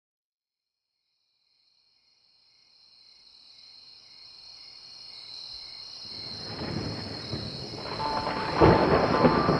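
Crickets chirping fade in, then a rumble of thunder builds, with a sudden loud boom about nine seconds in.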